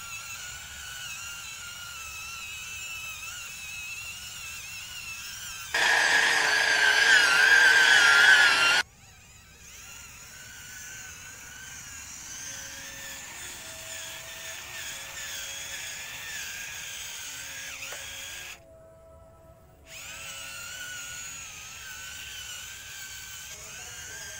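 Small electric gear motors of a homemade four-wheeled RC rover whining as it drives, the pitch wavering. The whine turns much louder for about three seconds from around six seconds in, then cuts off abruptly, with another short dip later.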